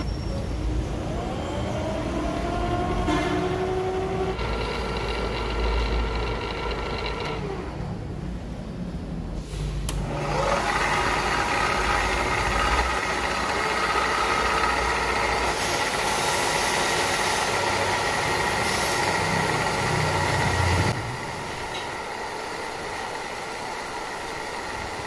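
Electric tool-post grinder on a lathe running with a steady whine while its wheel grinds a heat-treated steel splined shaft down to finished size. The low hum underneath drops out about three-quarters of the way through while the whine and grinding go on.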